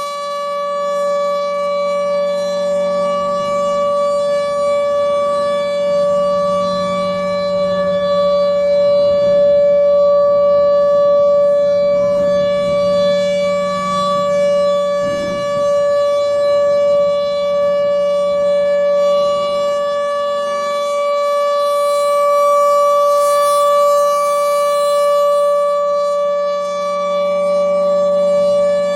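Federal Signal Thunderbolt 1000 outdoor warning siren sounding the alert signal, a steady unwavering tone. Its loudness swells and eases slightly over the seconds.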